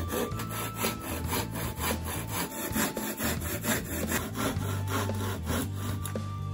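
Hand saw cutting through a clamped wooden board, rasping back-and-forth strokes at about three a second, stopping shortly before the end.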